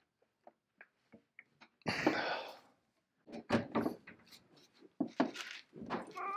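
Heavy steel hook jaw and chain of a J.H. Williams No. 16 chain pipe wrench knocking and scraping as they are moved by hand on a wooden workbench: a few faint ticks, a short scrape about two seconds in, then several clunks.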